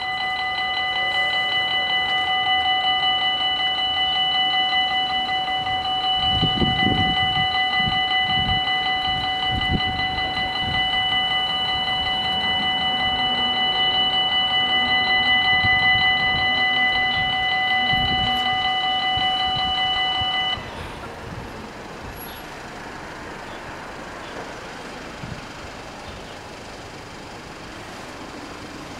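Electric warning bells of a Belgian level crossing ringing rapidly and steadily while the barriers lift after a train has passed, then cutting off suddenly about twenty seconds in. Waiting road vehicles rumble underneath.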